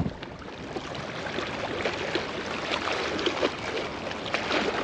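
Small waves lapping and splashing irregularly against the rocky shoreline.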